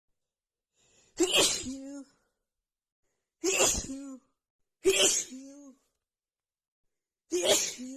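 A woman sneezing four times in a rapid sneeze attack, the sneezes let out rather than stifled: each is a sudden loud burst followed by a short vocal trail, with brief silences between them and the last one near the end.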